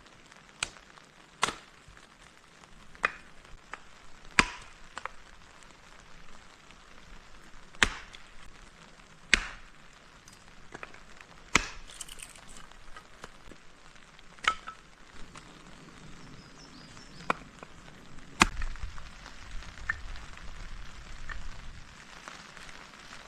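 Wood being chopped or split with a blade: about ten sharp, irregularly spaced strikes, a few seconds apart, over a faint steady hiss.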